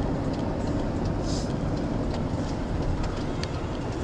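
Steady road and engine noise inside a moving car's cabin: an even low rumble of tyres on asphalt, with a few faint clicks and a brief hiss about a second in.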